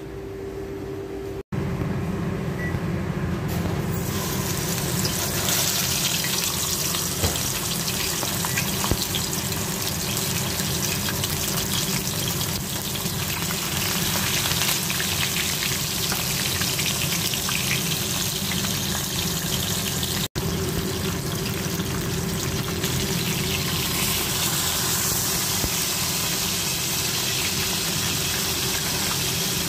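Whole flour-dusted fish shallow-frying in hot oil in a pan: a steady, dense crackling sizzle.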